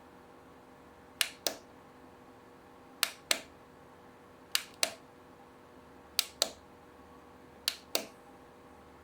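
Push-button switch on a rechargeable AKKO lamp clicked five times in even succession, each press a sharp double click of press and release.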